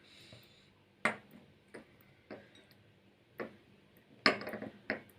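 A spoon clinking and tapping against a glass as lemon syrup concentrate is spooned in: about six sharp, spaced-out clicks, the loudest about four seconds in with a brief ring.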